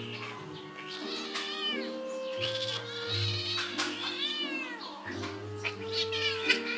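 Kitten meowing several times in high, drawn-out cries that rise and fall in pitch, over background music.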